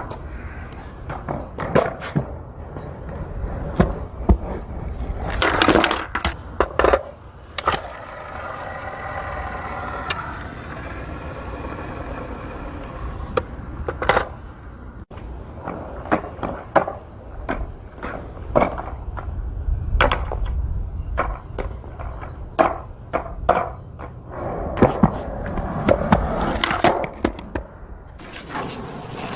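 Skateboard wheels rolling with a steady low rumble, broken by many sharp clacks and knocks and by stretches of scraping; from about 8 to 13 seconds in, the scrape carries a pitched grinding tone.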